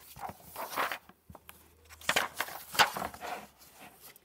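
Paper pages of a hardcover picture book being turned and handled: rustling and brushing with small taps, in a short bout at the start and a longer, louder one about two seconds in.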